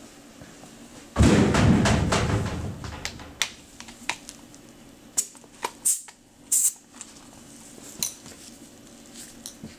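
Handling noise from a pneumatic palm sander being picked up: a loud thump and rustle about a second in, fading over the next two seconds, then scattered light taps and clicks. The sander's motor is not running.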